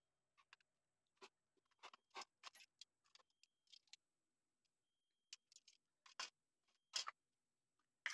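Faint, scattered clicks and light taps, about a dozen of them, from the plastic and metal parts of a mixer grinder being handled and taken apart.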